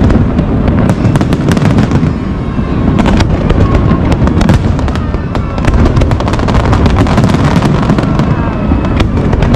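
Aerial fireworks display going off in rapid succession: a dense, continuous low rumble of exploding shells with many sharp cracks and crackles on top.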